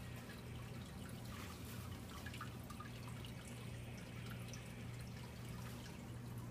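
Aquarium filter running: water trickling and dripping into the tank over a steady low hum.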